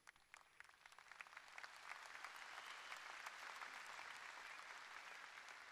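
A large audience applauding, faint in the mix: scattered claps build within the first second or two into steady applause, which thins out near the end.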